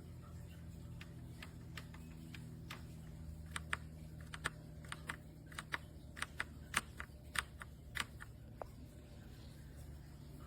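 Keychron C2 mechanical keyboard's down-arrow key, a Keychron Brown switch, pressed again and again in separate irregular clicks. The owner finds that this switch registers only intermittently.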